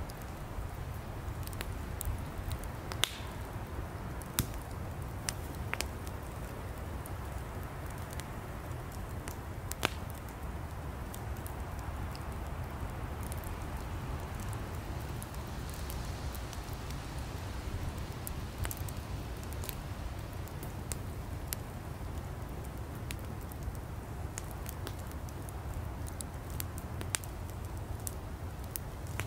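Wood campfire burning: a steady low rumble of flames with irregular sharp crackles and pops from the burning firewood.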